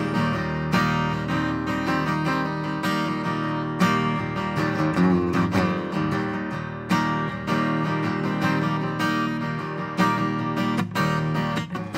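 Acoustic guitar strummed, ringing chords in an instrumental passage with no singing.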